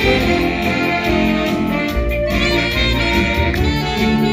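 A saxophone ensemble plays a tune together in harmony over a steady beat.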